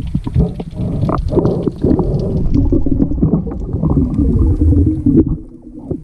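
Underwater sound through an action camera's housing: a loud, muffled rumble of moving water with scattered clicks and knocks, easing off near the end.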